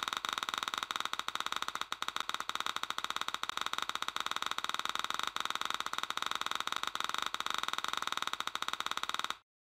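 Continuous rapid, even electronic ticking over steady tones, cutting off suddenly near the end.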